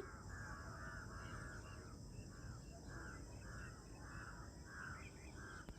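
Crow cawing faintly in a steady series of short caws, about two a second.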